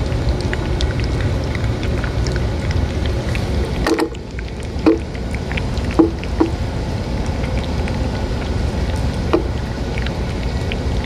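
Cats eating wet cat food from a metal dish close to the microphone: small wet clicks of chewing and licking, with a few louder clicks in the middle, over a steady low rumble.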